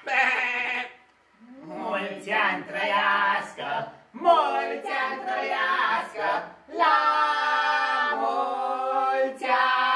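A small group of voices, the puppeteers voicing the goat puppets, singing a Romanian birthday song without accompaniment: held notes in short phrases with brief pauses between them.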